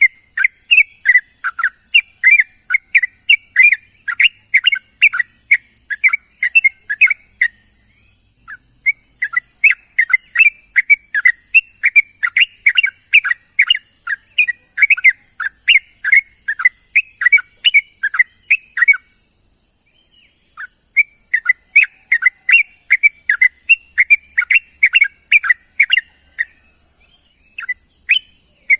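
Yellow-vented bulbul (trucuk) calling: quick, bubbly, whistled notes in fast runs of several a second, broken by brief pauses. A steady high hiss runs underneath.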